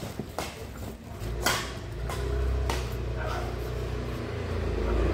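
Badminton rackets striking a shuttlecock in a rally: four sharp smacks in the first three seconds, the loudest about a second and a half in, over a low steady rumble that starts about a second in.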